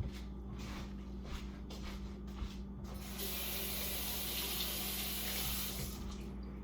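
Kitchen tap running for about three seconds in the middle, cut off sharply, after a few light clicks and knocks of kitchen handling, all over a steady low hum.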